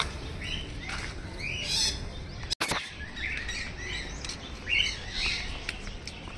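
Birds chirping and squawking, many short calls overlapping. The sound cuts out for an instant about two and a half seconds in.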